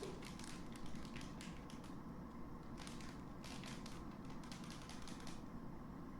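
Faint quick clicks and scratches of a cat's claws gripping as it climbs, in two runs: one in the first second and a half, another from about three to five and a half seconds in.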